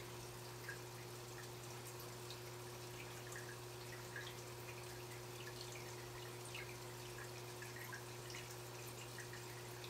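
Aquarium water trickling and dripping in small irregular plinks, over a steady low hum.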